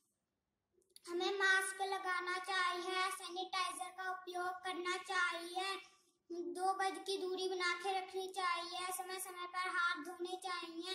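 A young boy singing unaccompanied in two long phrases, the second beginning about six seconds in, with a short pause between them.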